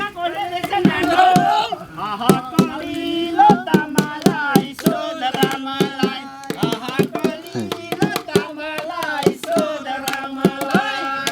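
Nepali folk singing around a campfire, a voice holding wavering sung lines, with many sharp percussive strikes from hand percussion.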